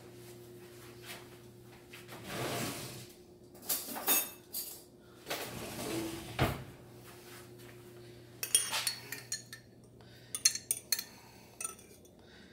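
Kitchen handling sounds: a couple of longer scraping, rustling sounds, then a run of sharp clinks of a metal spoon against a glass jar and a plate as salsa is spooned out. A faint steady hum runs underneath.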